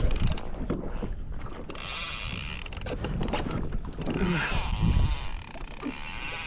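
Spinning fishing reel being cranked, its gears ratcheting as line is wound in, with wind noise on the microphone from about two seconds in.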